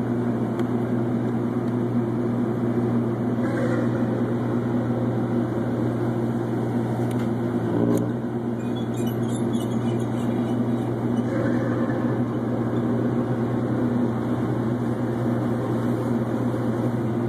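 A tugboat's engine running steadily, a constant low drone.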